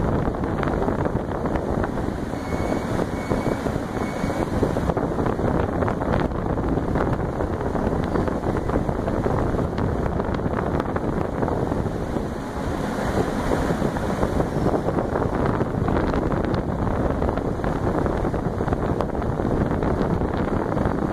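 Alugen 6K-I ST evaporative air cooler's fan blowing steadily, its airflow rushing over the microphone as an even, unbroken wind noise.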